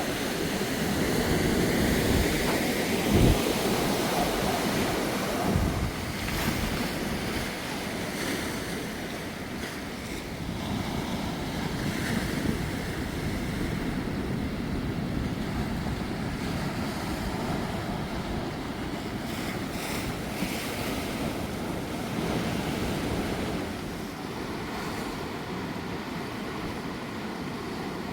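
Ocean surf washing onto the beach, with wind buffeting the microphone; a couple of low thumps of wind a few seconds in.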